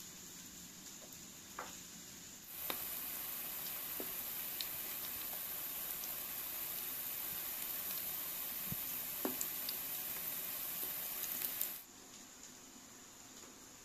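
Eggplant slices sizzling in hot oil in a frying pan, a steady hiss that starts about two seconds in and stops suddenly near the end, with a few light ticks of a wooden spoon against the pan.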